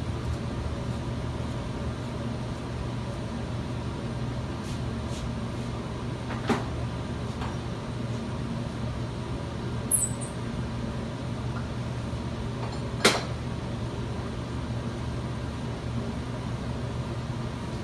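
Steady low hum of shop machinery with a few separate sharp knocks and clicks, the loudest about two-thirds through, as a prop is picked up and set in place under the work.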